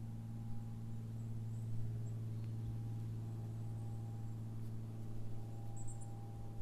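Distant small airplane's engine droning overhead, a steady low hum that holds its pitch. Faint high chirps come in near the end.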